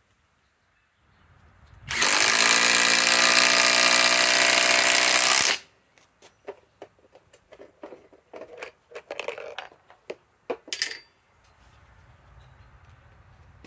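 SKIL PWR CORE 20 cordless impact driver hammering a long timber-lock screw into a wooden beam: it spins up about two seconds in, runs steadily for about three and a half seconds and stops sharply. After it comes a string of light clicks and rattles.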